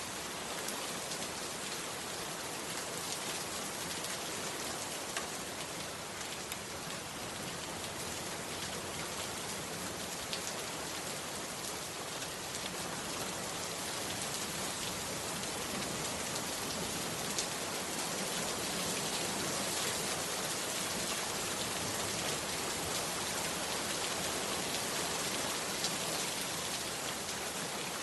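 Heavy rain pouring steadily on a bamboo hut, with fine pattering of individual drops. It grows a little heavier in the second half.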